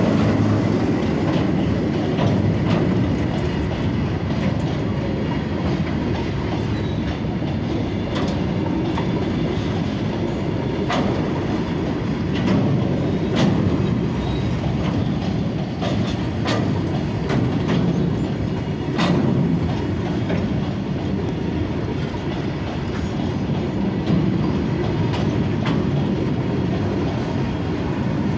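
Broad-gauge freight train of covered wagons rolling past, a steady heavy rumble of wheels on rail with sharp clanks and clicks now and then as the wheels cross the rail joints.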